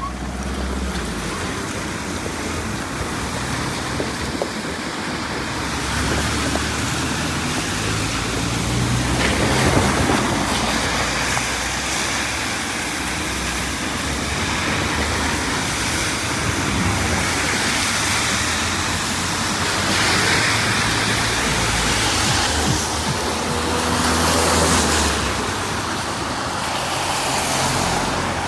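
Road traffic on a wet road: car engines running and tyres hissing on the wet surface, with the sound swelling several times as vehicles pass close by.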